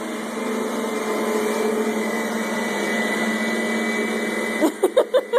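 Household vacuum cleaner motor running steadily with a low hum and a high whine. Near the end the whine stops and a person laughs in a quick ha-ha-ha.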